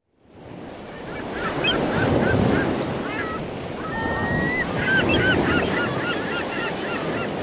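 Surf washing on a shore, fading in, with a flock of birds calling over it in many short chirps and squeals and one longer whistled note.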